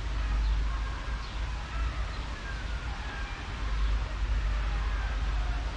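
Birds chirping in short scattered calls over a steady, uneven low rumble.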